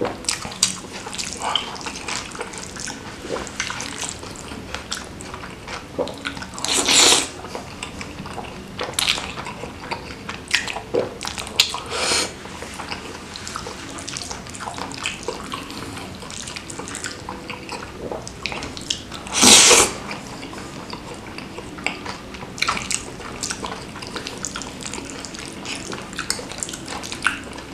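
Close-miked wet eating sounds of a person chewing and smacking on spicy chicken noodles (mie ayam), with many small mouth clicks and two louder slurps, about seven seconds in and near twenty seconds in.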